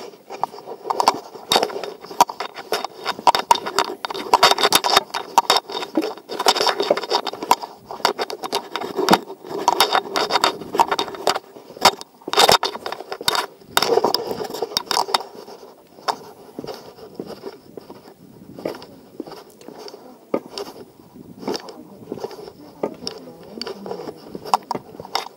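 Irregular footsteps on a stone path and steps, with scraping and rustling from clothing and gear carried by the walker, busiest in the first half and thinning out later.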